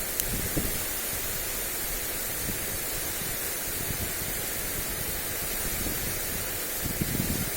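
Steady hiss of a lawn sprinkler's water spray, with gusts of wind buffeting the microphone, stronger near the end.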